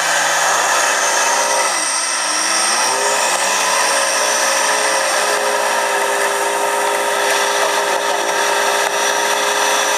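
Off-road vehicle engine running hard with a high whine. The engine speed dips and picks up again about two seconds in, then holds steady.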